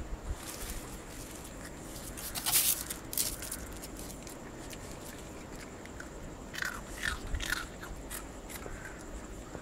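A puppy crunching and chewing small pieces of biscuit in irregular crisp bites, loudest about two and a half seconds in, with another run of bites near the end.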